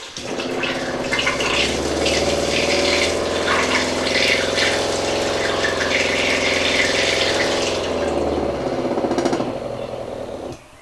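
A SHURFLO Revolution 12-volt diaphragm water pump running with a steady hum while water gushes from a PEX line into a plastic bucket. Both stop about two seconds before the end.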